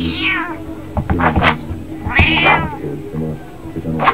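Calico cat yowling at a dog that is pestering it: two drawn-out calls that rise and fall in pitch, one at the start and another about two seconds in, an annoyed warning to be left alone.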